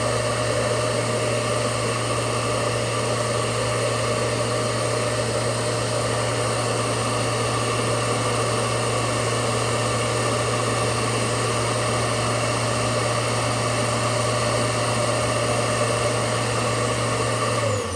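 Hoover Powerdrive XL vacuum cleaner's motor running steadily, drawing air through the hose during an airflow test, with a low hum under a higher whine. It is switched off near the end, and the pitch falls as the motor spins down.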